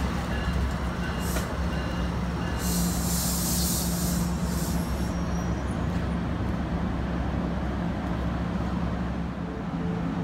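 NJ Transit multilevel commuter train at the platform, giving a steady low rumble and hum. A short hiss of air comes about a second in, then a longer one lasting about two seconds, typical of the air brakes.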